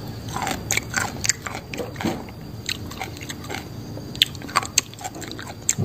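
Close-up crunching and chewing of a mouthful of pounded water spinach salad: irregular crisp crunches several times a second, with a few sharper snaps in the second half.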